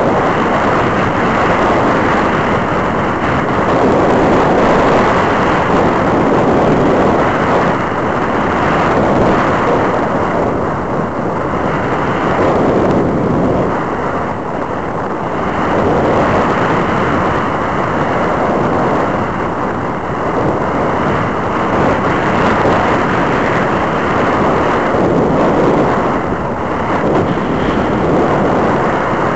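Wind rushing over the microphone of a camera mounted on a powered glider in flight. It is a loud, steady roar that swells and eases slowly as the glider turns.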